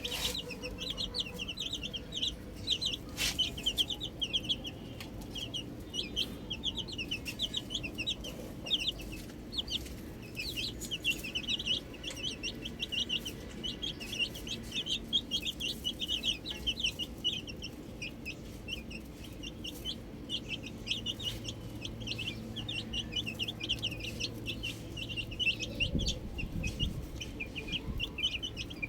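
A group of baby chicks peeping continuously: many short, high chirps overlapping without a break.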